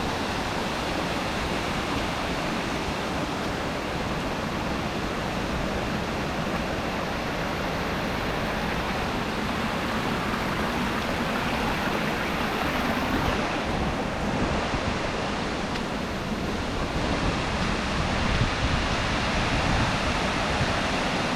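Waterfall rushing: a steady, even noise of falling water that holds without a break.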